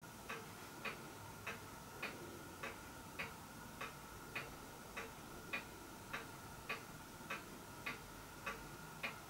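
Faint, regular ticking of a clock, a little under two ticks a second, over a faint steady high whine.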